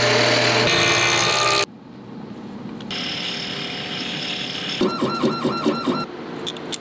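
A quick run of workshop machine sounds: a drill boring into a wooden pen blank, loud and steady, cuts off abruptly under two seconds in. A quieter small motor spinning a polishing wheel against a fountain pen nib follows. Near the end comes a rhythmic warbling machine sound, about five pulses a second.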